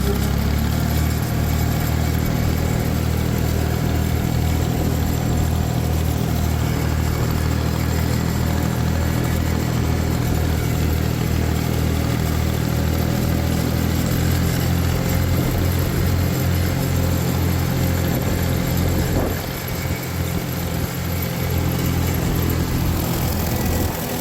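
Small tractor's engine running steadily under load as it pulls a mower through the rye, with a brief dip in level about three-quarters of the way through.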